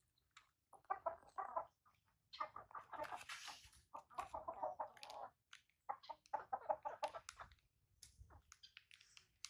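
A chicken clucking in four short bouts, each a rapid run of clucks.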